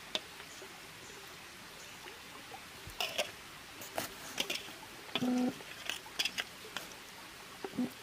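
Scattered light clicks and taps of a steel serving spoon and of hands eating off leaf plates, over a faint steady hiss. A short voice-like sound comes about five seconds in.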